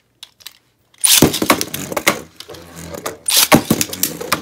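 Two Beyblade Burst spinning tops are launched into a plastic stadium about a second in. They skitter and clash, with a run of sharp collision clacks and the hardest strikes near the end.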